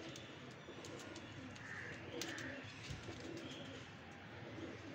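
Domestic pigeons cooing softly, with a few brief higher chirps and light clicks.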